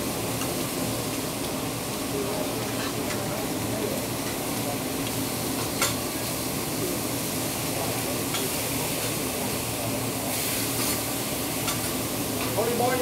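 Food sizzling steadily on a hibachi (teppanyaki) griddle, with a chef's metal spatulas scraping and clicking against the hot steel plate now and then, the sharpest click about halfway through.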